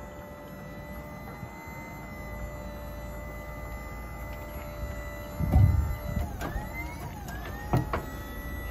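Lorry-mounted crane lifting a narrowboat's diesel engine out of the boat: a steady mechanical hum with a few whining tones. Past the middle come a couple of heavy low thumps, with short squeaks gliding up and down as the engine swings clear.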